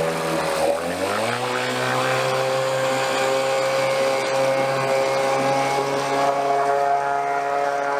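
Small outboard engine on a folding tender revving up about a second in, then running at a steady high speed as the tender pulls away. With its fuel mixture just adjusted, it runs reliably.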